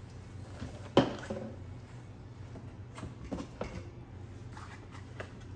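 Hard objects being handled and set down: one sharp knock about a second in, then a few lighter clicks and taps, over a steady low hum.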